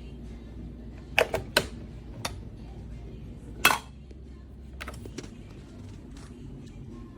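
About half a dozen sharp plastic clicks and knocks from handling a mini single-serve coffee maker, the loudest a little past the middle, over a low steady hum that fades out about five seconds in.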